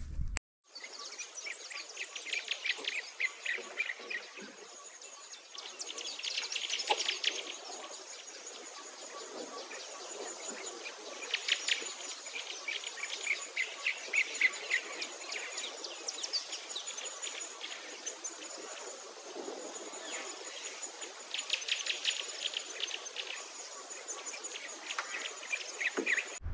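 Field ambience: birds singing in bursts of rapid trilled notes every few seconds, over a high, thin insect call repeating in short pulses about once a second.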